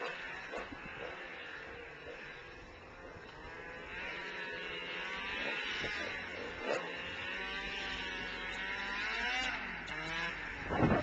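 A 1997 Yamaha V-Max XTC 600 snowmobile's two-stroke engine, fitted with a Bender aftermarket exhaust can, growing louder as it approaches, its pitch wavering up and down with the throttle. Wind buffets the microphone near the end.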